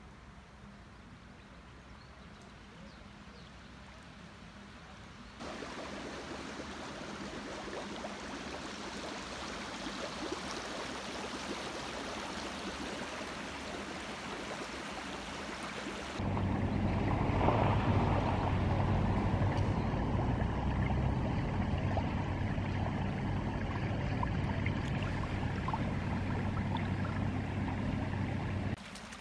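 Floodwater running, in three separate clips that cut in abruptly, each louder than the one before. The last and loudest has a steady low hum beneath the rush of water.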